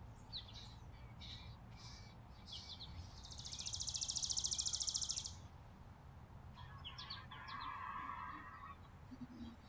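Small songbirds calling at a seed feeder: scattered short high chips, then a loud, rapid buzzy rattle lasting about two seconds starting around three seconds in, and a few more chips near the end, over a low steady background rumble.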